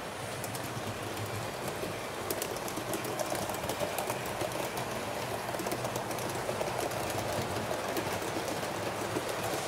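Model train running along the layout's track: a steady rolling rattle with many small, irregular clicks from the wheels on the rails, growing slightly louder.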